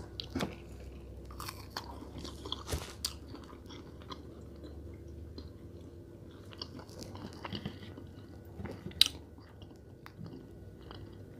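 A person chewing and biting food close to a microphone, with scattered soft crunches and mouth clicks.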